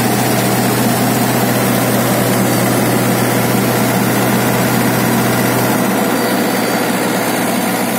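Mahindra 585 tractor's diesel engine idling steadily, heard from the driver's seat, its low hum easing slightly about six seconds in.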